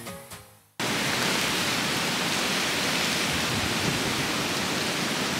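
Background music fades out, then about a second in steady rain starts abruptly and keeps up as an even hiss.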